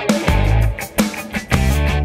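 Rock music with a steady drum beat, about two hits a second, heavy bass notes and guitar.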